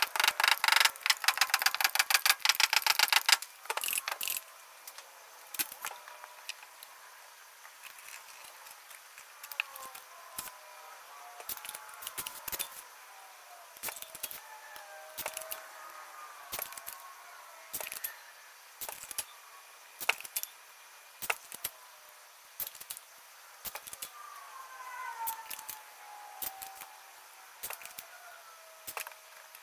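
Valve springs being fitted to an aluminium LS cylinder head with a hand lever-type valve spring compressor: metal clicks and clinks of the tool, springs, retainers and keepers. A fast run of clicks fills the first three seconds or so, then single clicks come every second or so.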